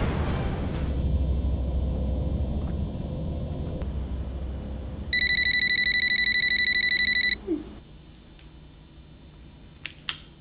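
A low rumble fades out, then a mobile phone rings for about two seconds with a loud, rapidly warbling electronic trill. Two quick clicks follow near the end as the flip phone is opened.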